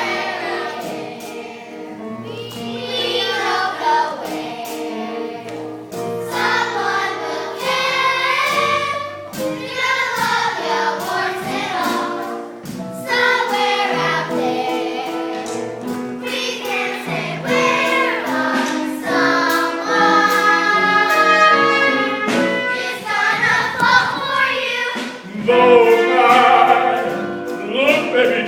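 A children's chorus singing a musical-theatre song together over instrumental accompaniment.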